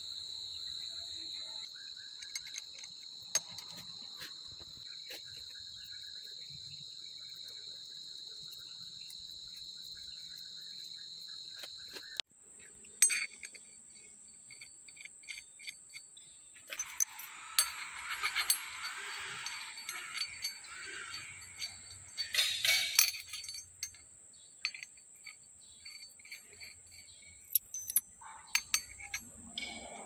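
Steady high-pitched insect chirring, one tone of which stops abruptly about twelve seconds in while a higher one carries on. Over the second half come scattered clicks and metallic clinks of steel parts being handled, a bolt fitted into a freshly drilled gear, with a few seconds of rough noise a little past halfway.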